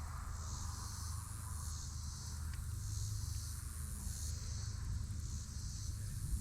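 Insects calling in a high, steady chorus that swells and fades in slow waves, over a low steady rumble.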